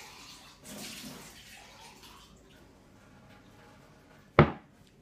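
Water running briefly from a tap, then a single loud thump near the end.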